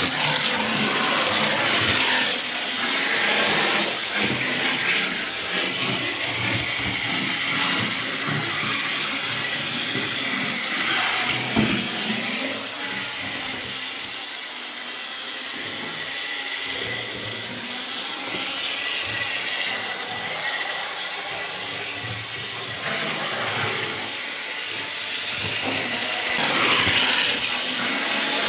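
Model railway trains and a model tram running on the layout: a steady rushing hiss of their motors and wheels on the track, with a faint steady high whine.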